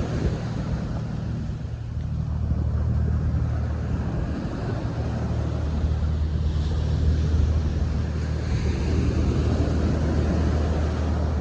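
Waves washing on a beach with wind buffeting the microphone, over a steady low drone from a passing ship's engine.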